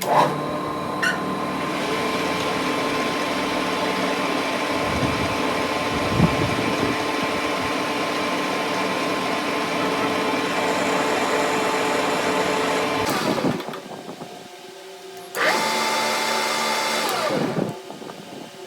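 An electric power tool's motor running steadily for over ten seconds, cutting out, then running again for about two seconds before winding down, its pitch falling as it stops.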